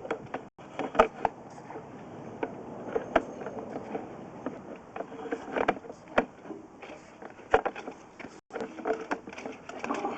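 Sewer inspection camera and its push cable being pulled back through a 4-inch sewer line: irregular knocks and clicks over a steady scraping noise as the cable is drawn in and the camera head bumps along the pipe.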